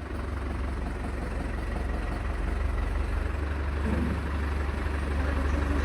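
An engine idling steadily, a deep low hum with a noisy rattle above it.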